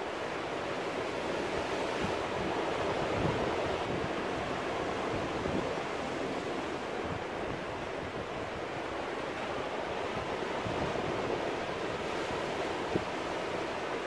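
Ocean surf breaking and washing among rocks: a steady rush of water that swells and eases gently.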